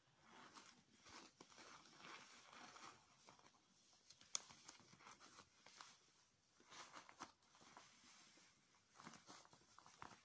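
Quiet crinkling and rustling of a shiny plastic bag for life being folded and rolled up by hand, in soft irregular handfuls, with a sharp crackle about four seconds in.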